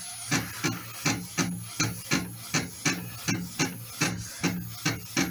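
Print-head carriage of an Epson 1500W-based DTG printer sweeping back and forth while printing, a repeating whirring stroke about three times a second.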